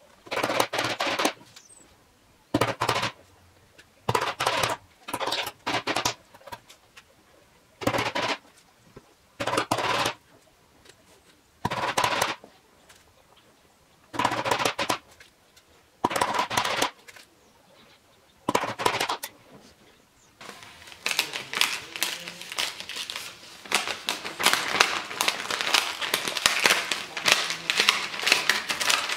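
Small hammer tapping thin nails into a board through a paper template, in about ten short runs of quick taps a couple of seconds apart. From about two-thirds in, paper crackling and tearing as the template is pulled off over the nail heads.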